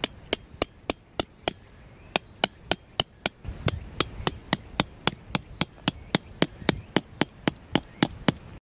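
A hammer driving a metal tent peg into gravelly ground: a steady run of sharp, ringing metallic taps, about three or four a second, with a short pause about two seconds in.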